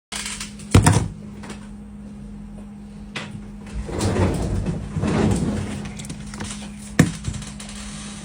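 Knocks and clacks of tools and parts being handled during a tablet screen repair: a sharp knock about a second in, another near three seconds and one near seven, with a rustling scrape in the middle, over a steady low hum.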